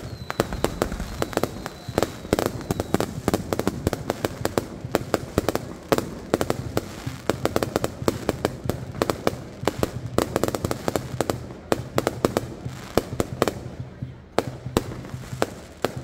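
Aerial fireworks bursting overhead: a dense, continuous volley of sharp bangs and crackling reports, many a second.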